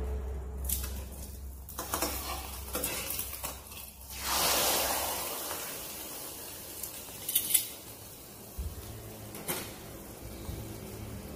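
Metal tongs clinking and scraping against a wok, with sizzling that swells up suddenly about four seconds in and fades over the next few seconds. A couple of sharp clinks a little past halfway are the loudest sounds.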